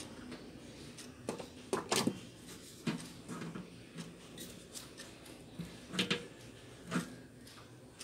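Scattered clicks and knocks of hands and a hand tool working the wire connections on a microwave oven's sheet-metal casing. The loudest come about two seconds in and again around six and seven seconds.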